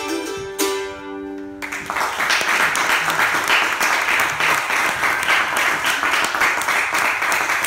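The last strummed chord of an acoustic string instrument rings out, and about two seconds in an audience breaks into steady applause.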